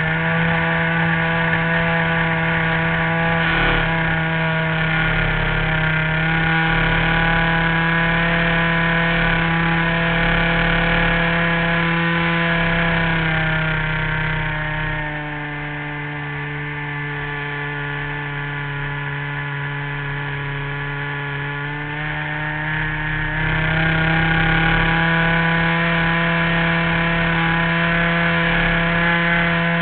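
An RC model airplane's engine runs steadily at speed, heard up close from the plane's own camera. About fifteen seconds in, the engine note drops and goes quieter as it is throttled back. About eight seconds later it picks back up to full power.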